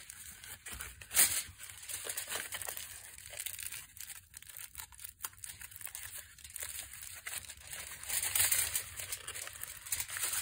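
Aluminium foil crinkling and crackling irregularly as hands crumple and press it into a cap around cast cement teeth, with one louder crackle about a second in.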